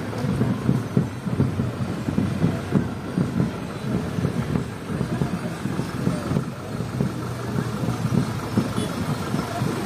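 Light truck's engine running at low speed as the float rolls slowly past, in the uneven rumble of a street parade.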